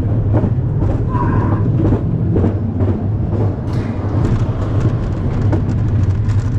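Vol d'Icare roller coaster train running on its track, with a steady low hum and rumble under a run of clicks and clacks that come thicker from about halfway as the train reaches and starts up the lift hill.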